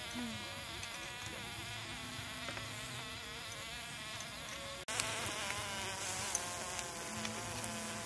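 Flying insects buzzing close by, several wavering tones weaving over one another. Just before five seconds in there is an abrupt cut, and the buzz carries on slightly louder.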